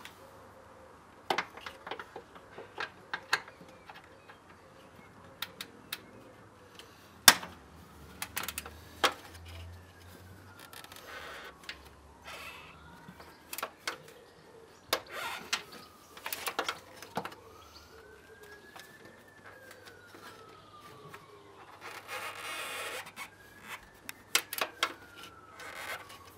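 Hand tools clicking and scraping against metal bolts in irregular knocks while working loose bolts in a vehicle's wing. From about a third of the way in, a siren wails faintly, its pitch slowly rising and falling.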